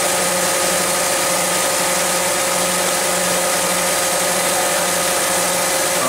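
Toyota 7FGCU30 forklift's propane-fuelled engine idling, with no change in level. It is the hard-starting, rough-idling engine that smells of propane at the exhaust and is running rich, a fault the mechanic is tracing to the MAP sensor.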